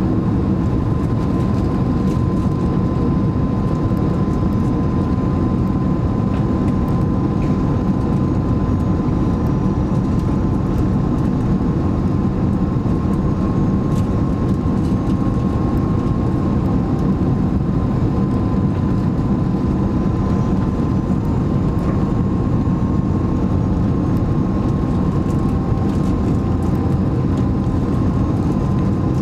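Steady in-cabin noise of an Airbus A330 on final approach, heard from a window seat beside the wing-mounted turbofan engine: engine and airflow noise, deep and even, with a faint steady whine above it.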